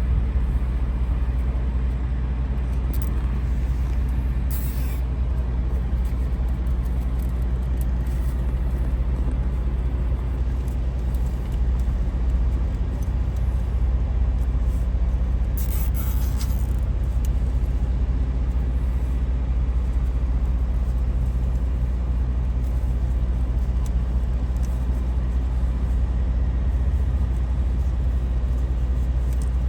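Large engine idling steadily: a low, even drone with a few faint clicks and taps over it.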